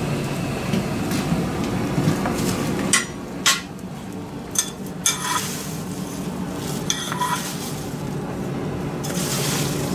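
Blacksmith's iron tongs and pokers clinking and scraping among the coals of a burning coal forge, over a steady low hum. The clinks come several times, the sharpest about three and a half seconds in.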